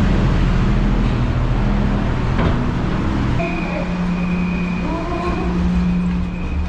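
Steady low drone of a ferry's machinery on the vehicle deck: a deep hum with overtones. About halfway through, the drone drops to a thinner hum and a steady high-pitched tone sets in.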